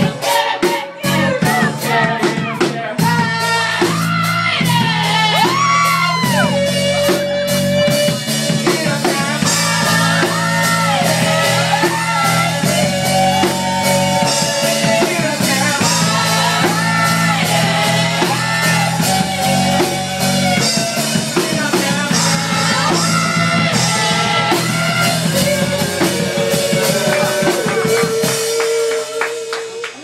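Live rock band playing: drum kit, guitar and bass with singing over them. The playing thins out near the end as the song finishes.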